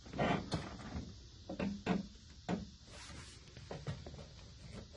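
A string of separate clicks and clunks from the control levers of a Toro Wheel Horse 16-38 HXL lawn tractor being moved by hand, the throttle/choke lever and then the deck-lift lever, with the engine not running.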